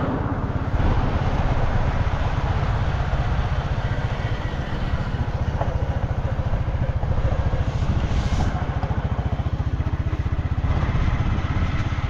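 Motorcycle engine running steadily while riding, a dense low pulsing with a broad rushing noise over it.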